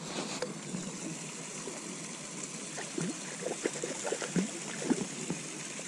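Water trickling and gurgling, with small scattered plops and splashes.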